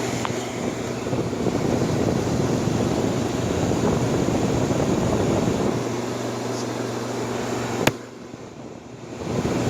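1958 Carrier window air conditioner running in cooling mode: a steady rush of fan and air with a low hum. Near the end a sharp click, after which the sound drops much quieter for about a second and a half before coming back.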